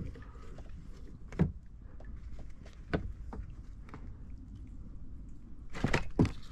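A few sharp knocks and thunks on a kayak: one about a second and a half in, another about three seconds in, and a louder cluster near the end, over a low steady rumble.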